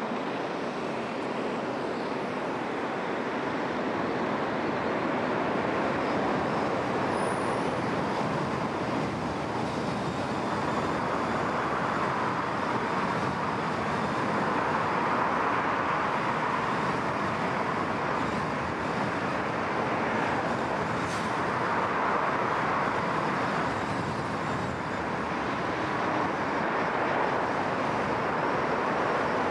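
Steady road noise of a car driving on city streets: tyres rolling on asphalt and wind, with other traffic around.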